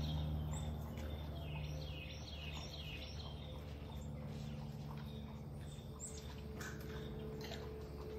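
A songbird sings quick runs of short falling chirps during the first half, over a steady low hum. A few faint clicks or rustles follow later.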